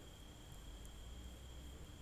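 Near silence: faint room tone with a steady high-pitched whine and a low hum under light hiss.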